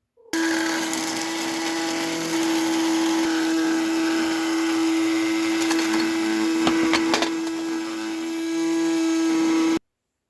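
Electric kitchen appliance motor running at a steady pitch for about nine and a half seconds, switching on abruptly and cutting off suddenly, with a few clicks about two-thirds of the way through.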